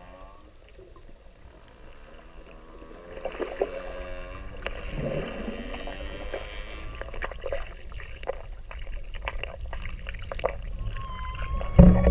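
Whale vocalizations recorded underwater: a pitched call that bends down and back up from about three to seven seconds in, then scattered clicks and a thin high whistle near the end, over a steady low water rumble.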